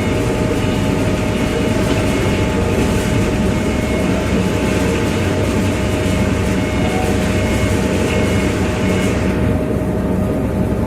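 Heavy machinery engine running steadily, with a constant whine over it; the high hiss fades out about nine and a half seconds in.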